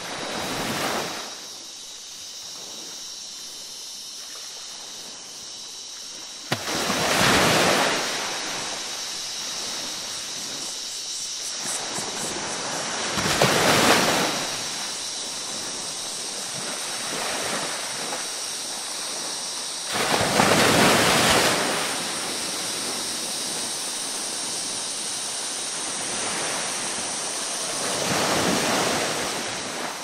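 Ocean waves breaking, a surge of surf rising and falling about every six to seven seconds over a steady wash of water.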